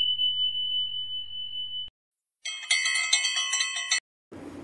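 Subscribe-button sound effects: a single high ding that rings for about two seconds, then, after a short pause, a second and a half of rapid, jingling bell ringing from a notification-bell effect.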